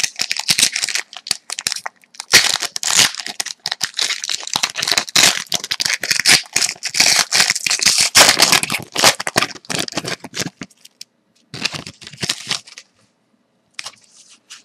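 A hockey card pack's wrapper being torn open and crinkled in the hands. It is a dense run of crackling that stops about eleven seconds in, with one short burst of crinkling a second later.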